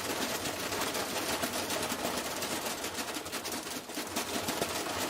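Washing machine on a fast spin with a brick inside, banging and rattling in a rapid, continuous clatter as the machine shakes itself apart.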